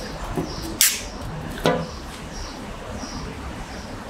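Two short clicks about a second apart from the ring-pull tab of an aluminium Coca-Cola Zero can, turned backwards and pressed into the lid. The first is sharp and hissy. There is no bang: the can does not burst.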